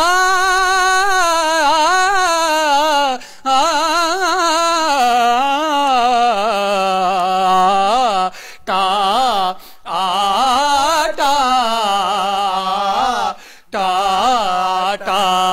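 A man singing the word 'aata' (flour) over and over, drawing each note out long with a strong waver in pitch, in several phrases with short breaks between them.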